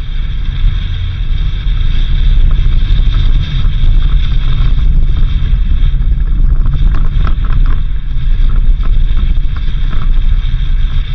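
Suzuki Jimny driving on a dirt road: a steady low engine and road rumble with wind on the microphone, and a few short knocks and rattles from the rough surface about seven seconds in.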